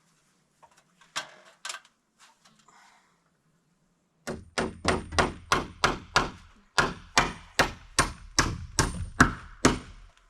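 Hammer driving nails into wooden boards: a couple of single knocks, then rapid strikes at about four a second, with one short pause, until the nail is home.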